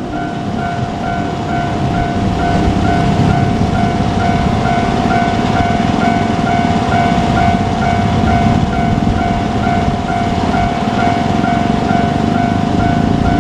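Japanese railway level-crossing warning bell ringing in a steady, evenly repeating clang, over the low rumble of a KiHa 47 diesel railcar.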